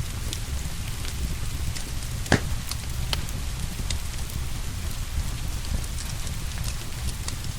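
Wood fire crackling, with scattered sharp cracks and one louder crack about two seconds in, over steady rain.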